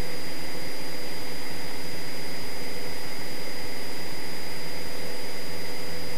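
Cessna 172's piston engine and propeller droning steadily in flight, heard inside the cockpit, with a faint steady high whine over it.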